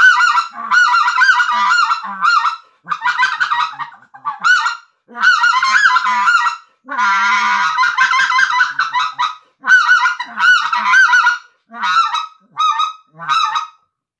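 Redbone 'Orange' short-reed goose call, hand-tuned high, blown in quick runs of honks. The runs come in about nine bursts with short breaks, the longest about seven seconds in.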